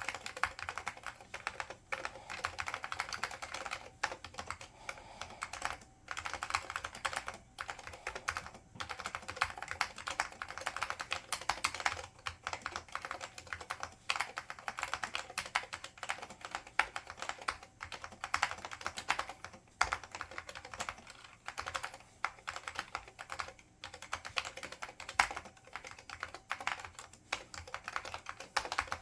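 Typing on an IBM 5556-001 keyboard with Alps SKCL Green switches and ABS doubleshot keycaps: rapid runs of keystroke clicks with short pauses between bursts.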